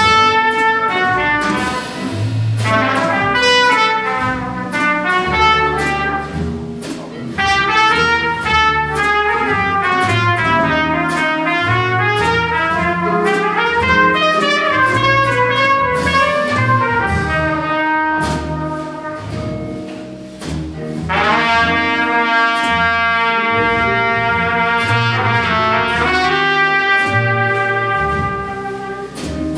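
Live jazz combo: a trumpet plays a melodic solo over electric guitar, double bass and drums keeping time on the cymbals. It plays in phrases and holds long notes in the second half.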